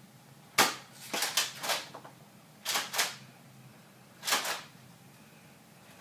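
Nerf Rampage pump-action dart blaster being pumped and fired: a run of sharp plastic clacks and puffs in quick groups, the first the loudest.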